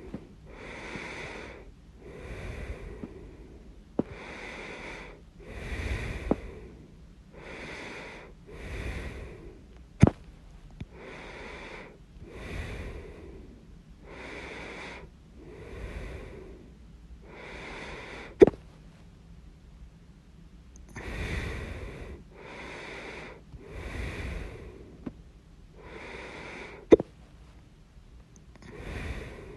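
A person hiccuping: brief, sharp hics, the loudest three coming about eight or nine seconds apart, with steady breaths in and out about every second and a half in between.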